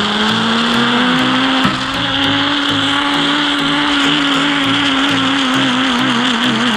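Zip-line (flying fox) trolley pulleys whining along the steel cable: the pitch rises as the rider picks up speed, holds, then wavers and falls near the end as the trolley slows. Background music plays underneath.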